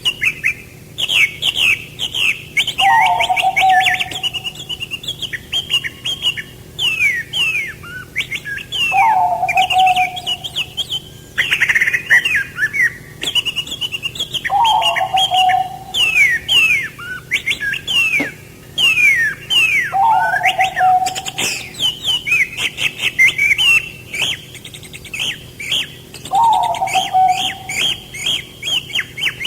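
Several songbirds chirping constantly in quick downward-sliding notes, with a lower call repeating about every six seconds.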